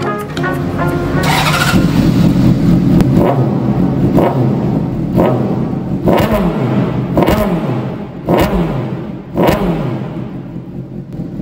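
Honda CBR600RR inline-four revved at a standstill through a loud aftermarket exhaust: a steady idle blipped about once a second, each rev rising and falling back. The owner calls it a total racket, too loud to ride around with.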